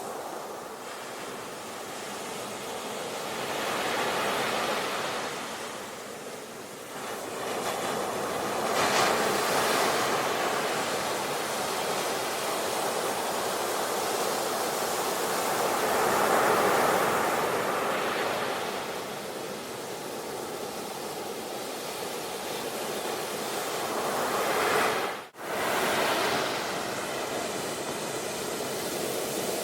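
Sea waves breaking and washing ashore, the surf swelling and easing every few seconds, with one very brief break in the sound about 25 seconds in.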